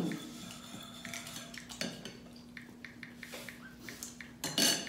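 Spoons and forks clinking and scraping on plates and serving dishes as people eat at a table, with a steady hum underneath. One louder sound comes near the end.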